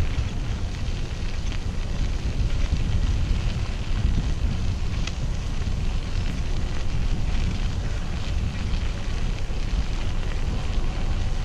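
Wind buffeting the microphone: a steady low rumble with light crackling over it.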